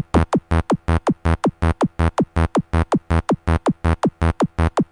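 Electronic dance music with a fast, steady drum-machine beat and a falling synth tone on every beat.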